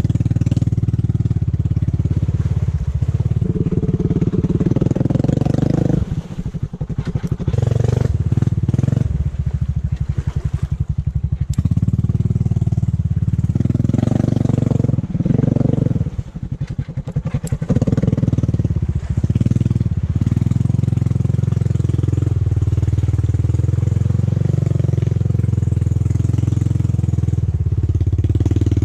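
Honda ATV's single-cylinder four-stroke engine running as the quad is ridden through a flooded mud trail. Twice, about six and about sixteen seconds in, the throttle eases and the engine slows to separate firing pulses before picking back up.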